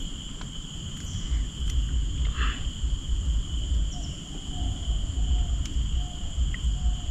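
Insects chirring steadily and high-pitched, over a low, gusting wind rumble on the microphone.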